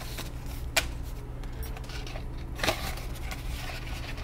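Paper banknotes being handled and rustled, with two sharp snaps of bills, about a second in and past halfway, then cash sliding into a binder envelope, over a low steady hum.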